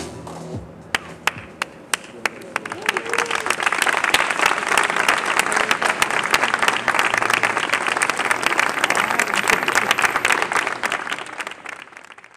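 Audience applause: a few scattered claps at first, swelling into full clapping about three seconds in, then dying away near the end.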